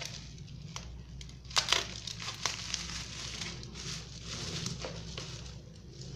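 Plastic bubble wrap crinkling and rustling as it is handled and unwrapped, with irregular sharp crackles, the loudest a little under two seconds in.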